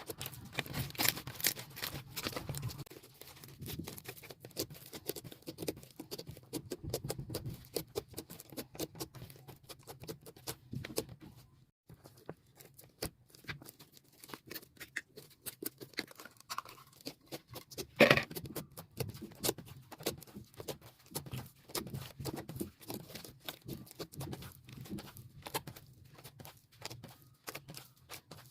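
Soft white slime being squished and poked by hand, giving a dense run of sticky clicks, pops and crackles, sped up to double speed. One louder snap about two thirds of the way through.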